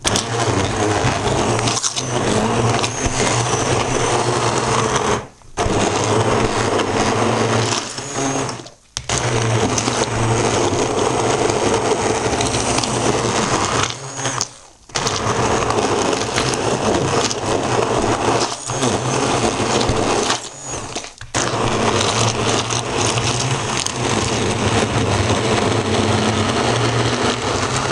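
Immersion (stick) blender running in a bowl, puréeing a thick mash of citrus fruit, garlic and honey. Its motor runs steadily and loudly, switched off briefly several times and started again.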